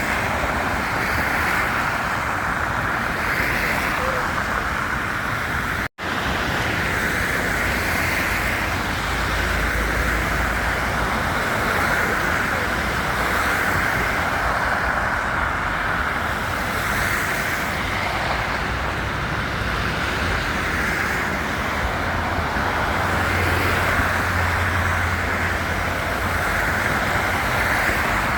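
Steady road-traffic noise, a continuous hiss of passing vehicles with a low rumble underneath. The sound drops out for an instant about six seconds in.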